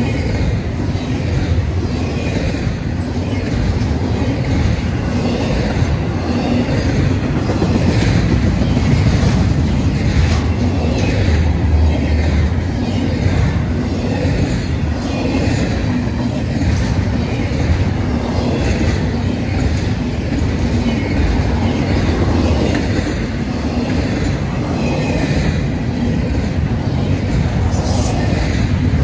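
Freight train cars rolling steadily past on steel wheels, with a continuous low rumble and repeated clicks of the wheels over the rail joints.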